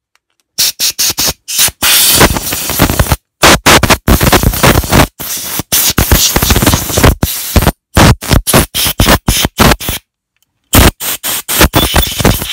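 Compressed air from an air-line blow gun hissing through the passages of a lawnmower carburettor in many short blasts and a few longer ones, with brief gaps between them and two pauses, one just after the start and one near the end. It is the final blow-down of the freshly cleaned carburettor.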